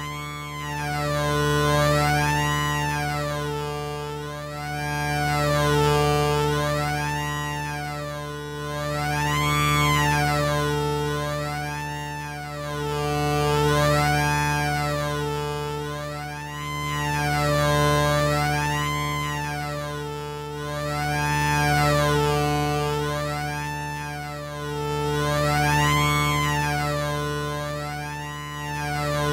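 Moog Sub 37 analog synthesizer playing a held low tone with higher tones above it, swelling in and fading away every four seconds. Its brightness sweeps up and down in quick repeated waves.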